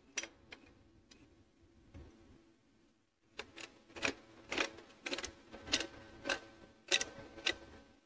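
Light, irregular metallic clicks and taps as a ceiling fan downrod is worked and turned into the fan motor housing's top mount. A couple of faint clicks come first; after a short quiet stretch, a run of sharper clicks follows at about two a second.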